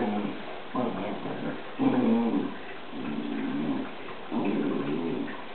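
Newfoundland dogs play-fighting and vocalizing: four or five short bouts of low, wavering growling and whining.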